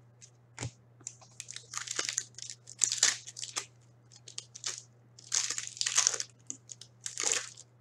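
Foil wrapper of a 2015-16 Upper Deck Series 2 hockey card pack crinkling and tearing as it is pulled open by hand, in two spells of short crackles: one about a second and a half in, the other about five seconds in.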